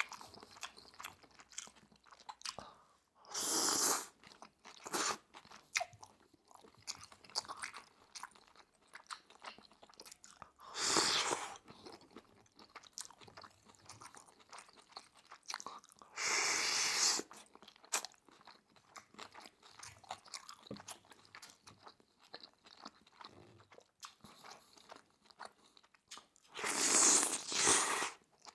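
Close-miked eating: wet chewing and lip smacks, broken by four louder slurps of udon noodles, the last one near the end.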